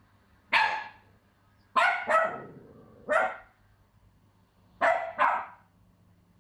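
A Pomsky (Pomeranian–husky mix) puppy giving six short, loud barks, one and then a quick pair, twice over. They are alarm barks at an unfamiliar toy pig she is afraid of.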